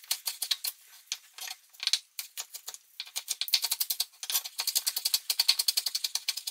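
Chef's knife chopping a spring onion on a bamboo cutting board. A few separate chops at first, then quick, even chopping from about three seconds in.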